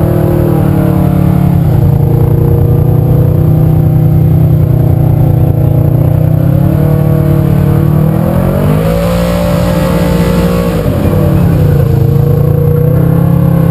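Polaris RZR side-by-side engine running hard under load during a tow-strap pull out of mud, its pitch rising about eight seconds in, holding, then dropping back about three seconds later.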